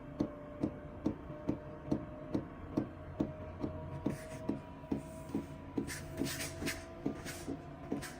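LF Bros N2 diesel heater starting up: its fuel dosing pump ticks evenly, about two to three ticks a second, over the steady hum of the fan motor ramping up, before the burner has lit. A few short hissing bursts come in about halfway through.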